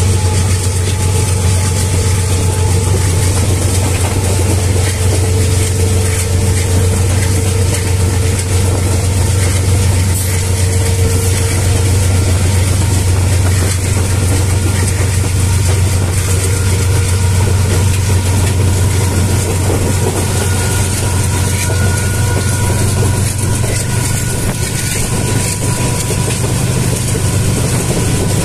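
Running noise of a moving passenger train heard at a carriage window: a steady low drone with the rush of the train's movement, even and unbroken throughout.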